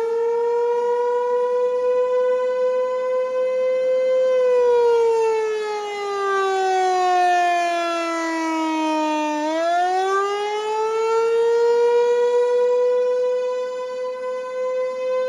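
American Signal T-128 outdoor warning siren sounding a slow wail. The tone holds steady for about four seconds, then slides down over about five seconds. It climbs quickly back up, holds again, and starts to fall once more near the end.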